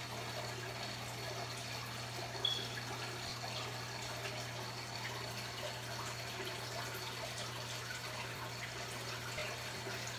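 Aquarium running: water trickling and dripping over a steady low hum, as from a tank filter and pump. A brief high-pitched blip about two and a half seconds in.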